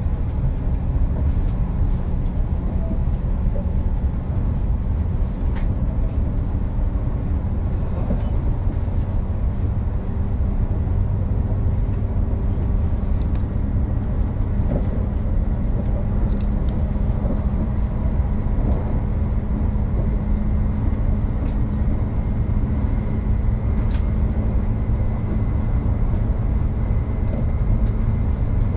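Running noise inside a JR 381 series limited express electric train car: a steady low rumble of wheels on rail, with a few faint clicks.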